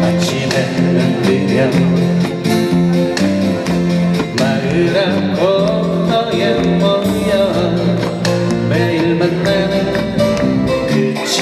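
Live acoustic band playing a song: strummed acoustic guitars with a djembe and a bass line, and a voice singing.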